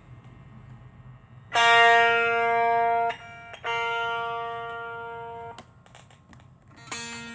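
1962 Fender Duo Sonic electric guitar strummed through an amplifier: three chords. The first is cut short after about a second and a half, the second is left to ring and fade, and the third comes near the end. A faint amplifier hum sits under the start.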